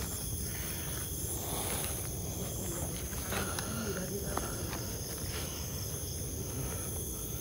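Insects, crickets among them, chirring in a steady high-pitched chorus over a low rumble. A few faint voices come in around the middle.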